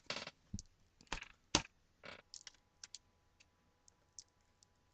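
Small clicks and knocks of a laptop LCD panel and its video cable connector being handled and plugged into the back of the screen, the loudest knock about a second and a half in, then a few faint ticks.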